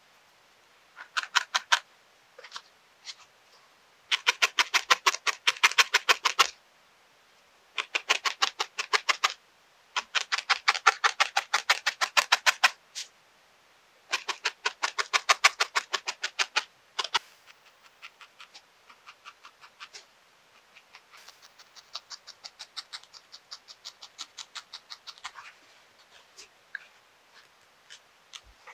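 Felting needle stabbing through white wool roving into a foam pad: fast, even pokes at about eight to ten a second in five bursts of a few seconds each, then lighter, scattered pokes over the last ten seconds as the loose wool is firmed into a shape.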